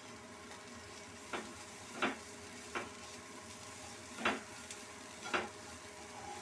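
Chopped onion frying in mustard oil with a steady sizzle, while a wooden spatula scrapes and stirs through the pan five times. The onion is being browned with ginger and garlic for a fish curry base.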